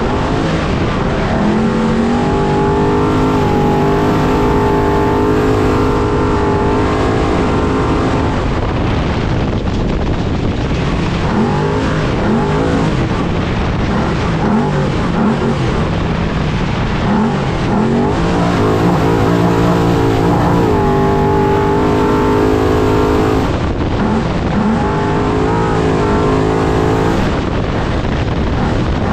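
Trophy truck's race engine under hard driving, revs rising and falling with the throttle. Twice it holds high for several seconds, with quick short revs in between. A constant rush of wind and tyre rumble runs underneath.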